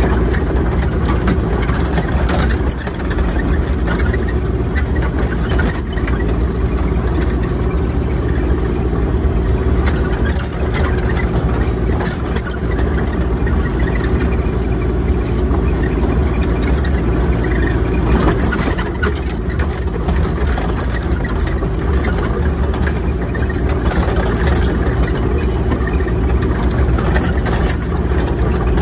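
Excavator's diesel engine running steadily, with scattered light clicks and rattles over it.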